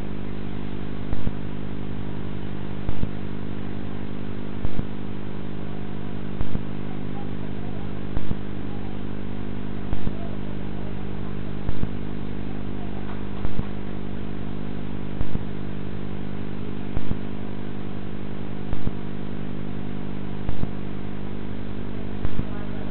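A steady, unchanging hum made of many stacked tones, with a sharp click repeating about every second and three-quarters.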